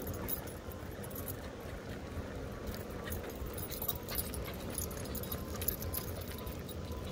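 Dog tags and leash hardware jingling lightly in scattered clinks, over a steady low rumble.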